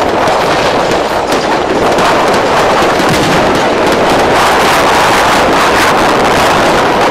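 Fireworks display going off in a rapid, unbroken barrage: a loud, dense run of crackling pops and bangs from aerial shells and fountains.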